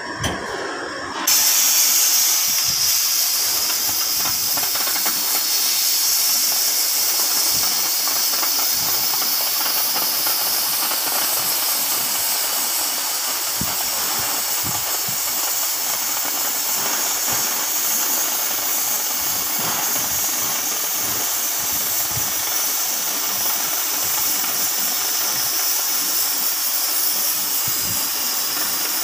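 CNC cutting torch cutting through 50 mm steel plate: a loud, steady hiss of the cutting jet that starts abruptly about a second in, with a few faint pops.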